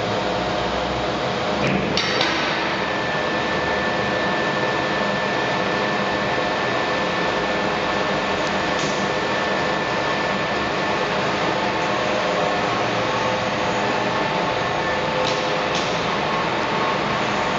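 PBR Legnano T 700 heavy lathe running: a steady mechanical hum with several steady whining tones. A sharp metallic knock comes about two seconds in, with a few lighter clicks later.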